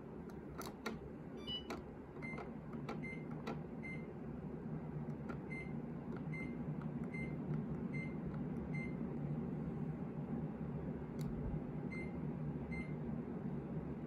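Mitsubishi Kirigamine room air conditioner answering its remote: a few button clicks, then about ten short high beeps, one per press, over the steady hum of the unit's fan. The hum grows louder a few seconds in as the fan speed is raised.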